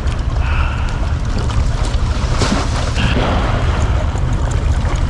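Wind buffeting the microphone in a steady low rumble, with waves washing and splashing against the granite jetty rocks.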